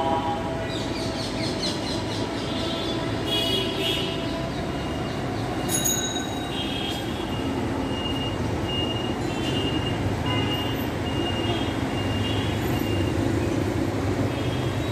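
Steady hum of road traffic and running vehicle engines. Short high tones recur about twice a second through the second half.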